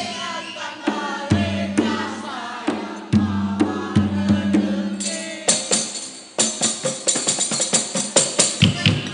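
Live ensemble music: a held melody over a low sustained note, then from about halfway in, quick drum and tambourine strikes.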